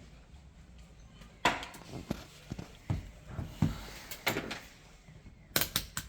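Irregular knocks and clicks, about eight in all, with a quick cluster of four near the end, from parts being handled during a washing machine drain pump repair.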